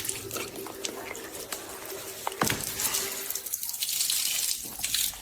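Water splashing and dripping in a small room, with scattered sharp clicks and one louder click about halfway.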